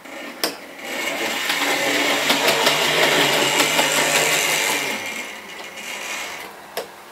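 OO gauge model locomotive running on the layout track, its small electric motor whirring with quick clicks of wheels on the rails. It grows louder as it passes close by, from about a second in until about five seconds, then fades away. A short knock comes just after the start and again near the end.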